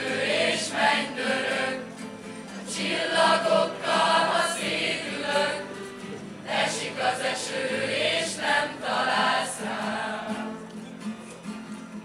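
A large mixed choir of young voices singing in unison phrases, accompanied by several strummed acoustic guitars. The singing gets quieter near the end.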